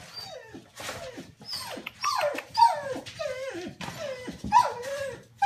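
Three-week-old whippet puppies whimpering and yelping: a quick run of short, high cries that fall in pitch, about two a second.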